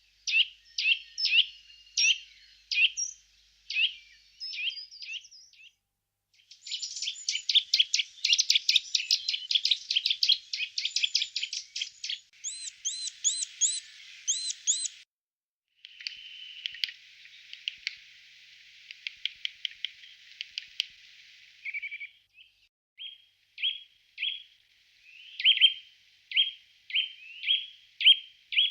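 Small songbirds chirping and calling in a run of short stretches that start and stop abruptly: scattered chirps, then a fast dense chattering trill, a few repeated looping whistles, a buzzy stretch with ticks, and sharp chirps about two a second near the end.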